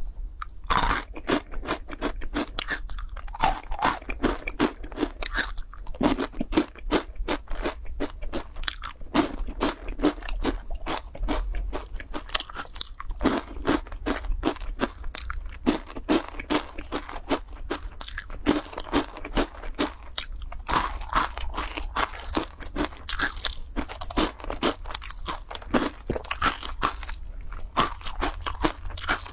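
Crisp dry instant-noodle balls being bitten and chewed close to a clip-on microphone: a dense, continuous run of crackling crunches.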